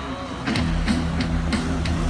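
Background music with a steady beat over a sustained low bass line.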